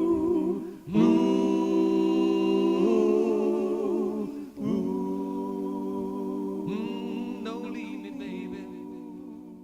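A singer holding long wordless notes with vibrato over a sustained chord, in three phrases, the last one slowly fading out as the song ends.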